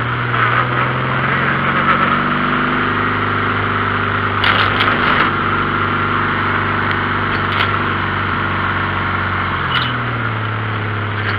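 Dune buggy's air-cooled VW engine running while driving on a dirt track. Its pitch rises a couple of seconds in, holds, and drops back near the end, under steady wind and road noise, with a few knocks and rattles from the bumpy ride about halfway through.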